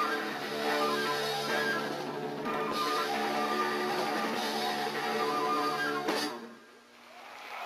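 Live rock band with electric guitar and drums playing the end of a song. A final hit about six seconds in cuts the music off suddenly, leaving a brief lull.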